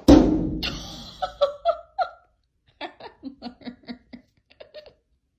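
A loud sudden sound right at the start that fades over about a second, then a person laughing in short repeated bursts, about five a second for a couple of seconds.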